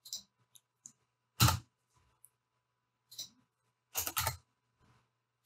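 Scattered computer keyboard keystrokes as numbers are typed into a spreadsheet-style grid: a few soft taps, a louder press about a second and a half in, and a quick double stroke at about four seconds.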